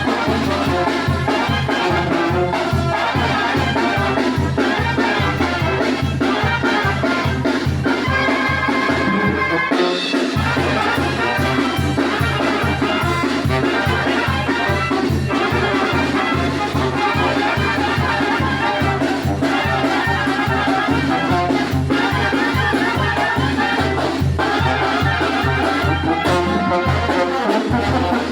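A brass band playing a chilena, with trumpets and trombones over a steady pulsing bass beat that drops out briefly about ten seconds in.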